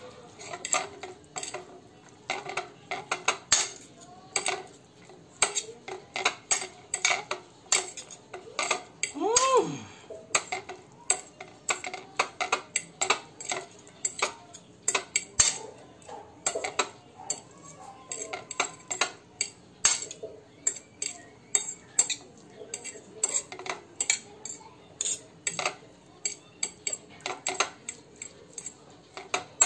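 Metal fork and spoon clinking and scraping against a ceramic plate as instant noodles are stirred into their sauce, in a rapid, irregular run of clinks. A short tone that rises and falls is heard once, about nine and a half seconds in.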